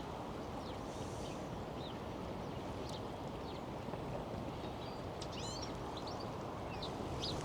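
Small birds, goldfinches and sparrows, chirping in short high calls, with a quick run of chirps about five and a half seconds in, over a steady low background rumble.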